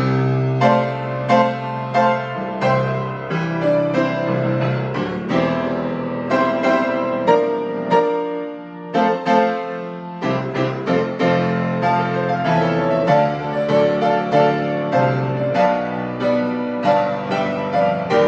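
Solo piano playing a hymn arrangement in full chords, notes struck about every half second to a second. About halfway through the bass drops out for a softer moment before the full chords return.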